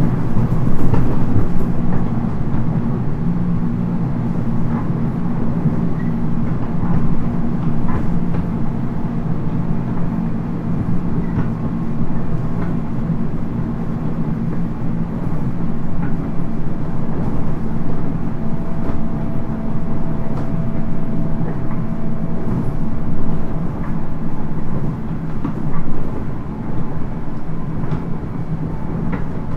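Interior running noise of a JR 719 series electric multiple unit under way: a steady low rumble of wheels on rail, with scattered clicks and knocks from rough track. A faint steady tone comes in a little past the middle and lasts several seconds.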